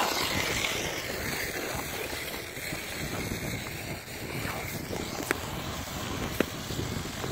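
Wind rushing and buffeting across the phone's microphone, with two sharp clicks in the second half.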